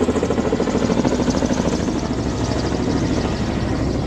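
Kamov Ka-31 helicopter flying by, its coaxial rotors making a rapid, steady chop.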